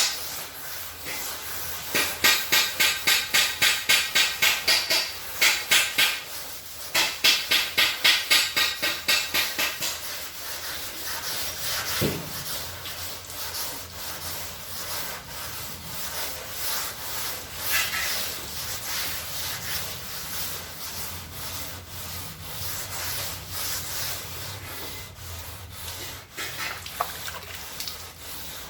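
Hand sanding of a car hood panel with sandpaper, in fast back-and-forth strokes of about three to four a second, easing after about ten seconds into quieter, less regular rubbing.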